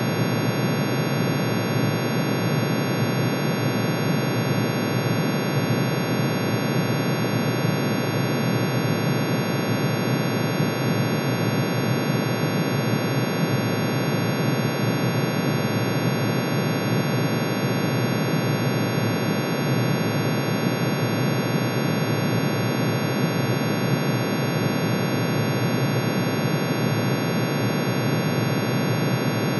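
Synthesized tone cluster: the emission spectrum of iron, each spectral line rendered as a sine wave pitch-shifted into the audible range and summed. It plays as a dense, unchanging drone of many tones at once, with a noisy, churning low band beneath a stack of steady high pitches.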